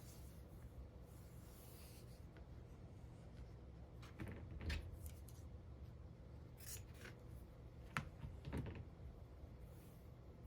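Faint handling of cloth pieces: a few short rustles and rubs, about four, seven and eight seconds in, over a low steady room hum.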